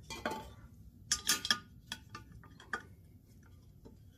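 Steel adjustable wrench clinking against a bolt head and steel bracket as it is fitted and turned, tightening the bolt into a freshly tapped hole in steel tubing. A quick run of light metal clicks, most between about one and three seconds in, fainter after.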